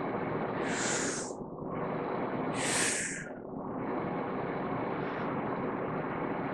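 A woman takes two deep breaths in through the mouth, each a hiss of under a second, about two seconds apart, with a held pause between. It is a staged freediving breathe-up, filling the diaphragm first and then the rib cage. A steady room hum runs underneath.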